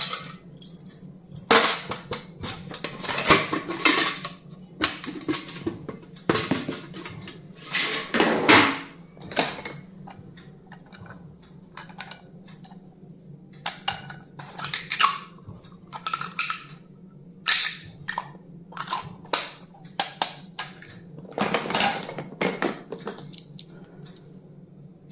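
Stationery items and their packaging being handled during unboxing: irregular clicks, taps and rustles in clusters, with short pauses between.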